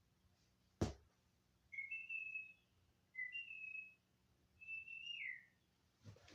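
Three short, high whistle-like chirps, each sliding up or down in pitch, with a sharp click about a second in and another near the end.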